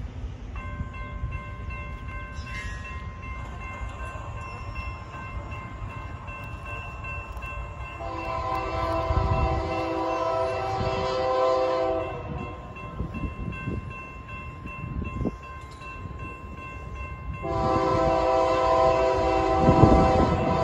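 Freight train locomotive horn blowing a long multi-note blast about eight seconds in and another near the end, on approach to a grade crossing. Underneath, the crossing bell starts ringing about half a second in as the signals activate, and the rumble of the approaching train grows loud near the end.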